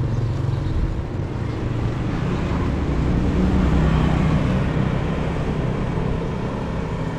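Small motorbike engine running as the bike is ridden along a street, its note rising a little about three to four seconds in.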